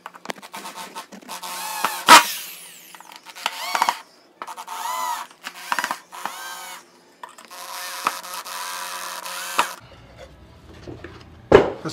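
Electric drill with a Phillips bit driving wood screws into a pine stool seat, in about five separate runs, the motor pitch rising and falling as the trigger is squeezed and eased. A sharp click about two seconds in, and a single knock near the end.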